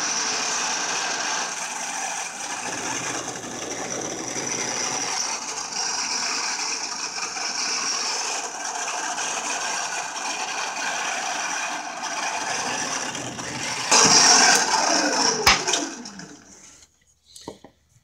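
Drill press running and boring a hole of about 3/8 inch into a fir block, a steady motor hum with cutting noise. About fourteen seconds in it briefly gets louder. Then the motor is switched off and winds down with a falling pitch.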